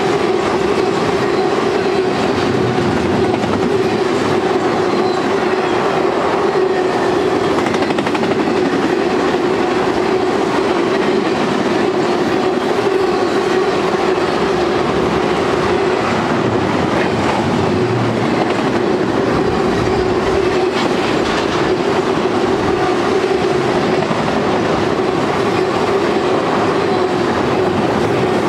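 BNSF intermodal freight train rolling past at a steady speed: the wheels of its trailer-carrying flatcars and double-stack well cars running on the rails, with a steady rumble, a constant hum and a clickety-clack over the joints.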